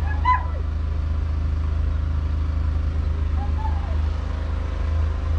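JCB Fastrac 4220's 6.6-litre six-cylinder diesel engine idling, a steady low rumble.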